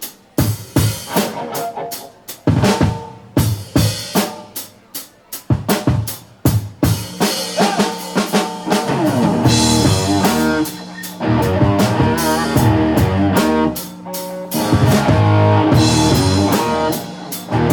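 Live rock band: a drum kit plays a beat alone, kick, snare and rimshots, then electric guitar and bass come in with a heavy riff about eight or nine seconds in.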